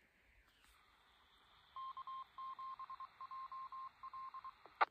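A repeater answering a handheld radio's call, heard faintly through the radio's speaker: the hiss of the open channel, a string of dot-and-dash beeps at one steady pitch that make up the repeater's Morse code identification, then a short squelch-tail burst near the end as the carrier drops.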